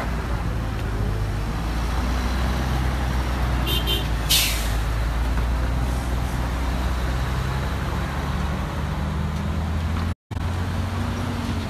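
Heavy truck engine idling in traffic, a steady low rumble, with a short hiss about four seconds in. The sound cuts out for a moment near the end.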